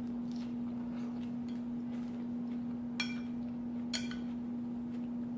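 Two light clinks of a utensil against a dish, about a second apart, each ringing briefly, over a steady low hum.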